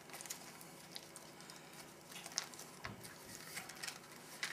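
Faint crinkling and scattered light clicks of a foil MRE retort pouch being squeezed out by hand, with one soft thump a little before three seconds in.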